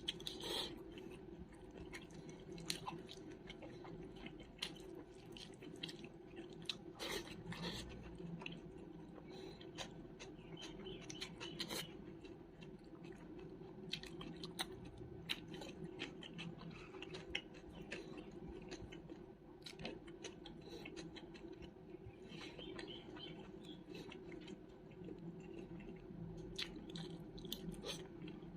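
Close-miked chewing of food, with many short wet mouth clicks and occasional crunches, over a steady low hum.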